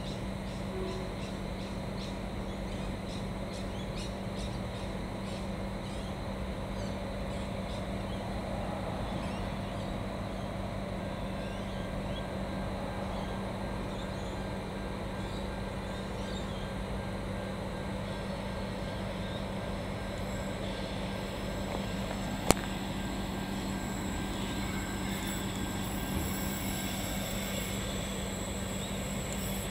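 Adelaide Metro 3100-class diesel railcar idling while stopped at a platform: a steady engine hum with a constant low drone, and one sharp click about two-thirds of the way through.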